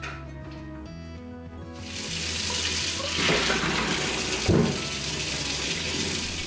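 Hot water poured from a pot through a mesh strainer into a stainless steel sink under a running tap, draining boiled lotus root slices. The rush of water starts about two seconds in, with a brief louder splash about halfway through.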